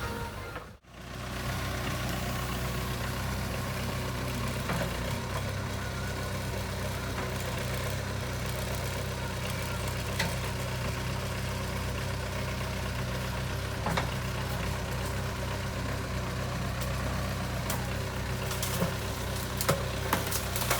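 JCB 3CX backhoe loader's diesel engine running steadily at low revs. The sound cuts out briefly about a second in, and a few sharp metallic clanks come near the end.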